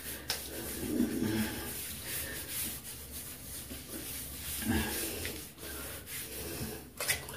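Hands rubbing shaving cream into a wet scalp: a continuous soft rubbing of lather against skin.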